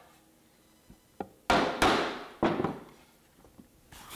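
Hammer blows on wood driving a tenon flush into its mortise in a Doug fir table leg: a light tap, then three hard knocks in quick succession.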